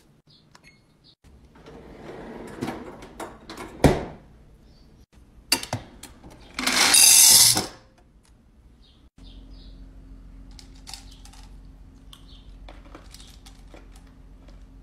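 Hard candy packages and cans being handled and set into a refrigerator drawer: small clicks, crinkling of wrappers and a sharp knock. Then a rush of about a second as M&Ms pour out of the fridge's door dispenser into a glass mug, clattering. A steady low hum with occasional clicks follows.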